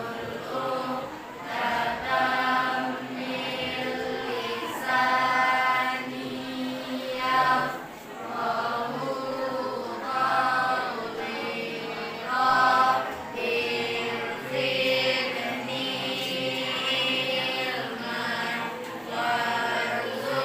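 A classroom of students chanting together in unison, in phrases of a second or two with short breaks between them.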